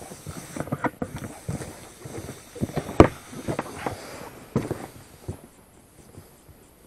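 Irregular knocks, rustles and crackles of hands working at an inflatable PVC boat's tube, with one sharp knock about three seconds in, dying away near the end. Electrical tape is being handled to patch the tube's split, leaking seam.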